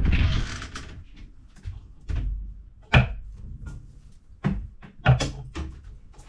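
Wardrobe doors opening and clothes being rummaged and pulled out: a rustle at the start, then scattered clicks and knocks against the wardrobe, the sharpest about three seconds in and again around five seconds.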